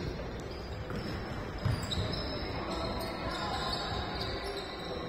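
Korfball game in a sports hall: a ball thuds on the hard floor, most strongly a little under two seconds in, over a steady background of players' voices and short high squeaks.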